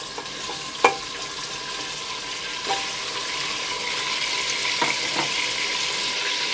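Raw red meat chunks sizzling in hot vegetable oil with whole spices in a pressure cooker, the frying hiss growing slightly louder. A sharp knock about a second in and a few fainter clicks come as the meat goes in.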